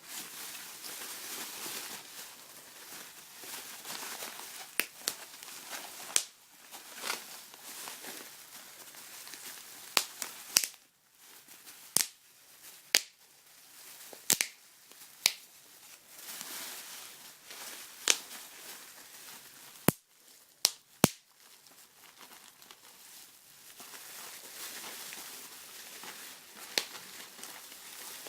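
Plastic bubble wrap crinkling and rustling as ferrets scramble over and tug at it, with about a dozen sharp pops of bubbles bursting, scattered at uneven intervals and bunched in the middle.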